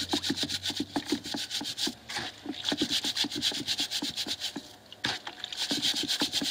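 A stiff brush scrubbing the metal brake pad retaining clips in degreaser: rapid back-and-forth scraping strokes with two short pauses.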